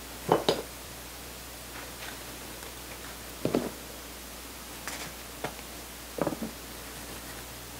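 Kitchen handling sounds: a handful of short knocks and scrapes as tongs lift a cooked tortilla from a pan and a tortilla warmer's lid is lifted off and set back on.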